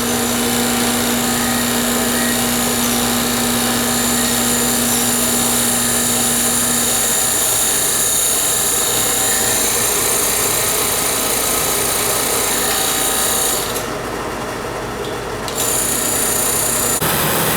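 A tire truing machine's rotating cutter shaving rubber off a spinning tire to make it round, a loud steady hiss over a low hum. The hum stops about seven seconds in, and the high hiss drops out for about two seconds near the end.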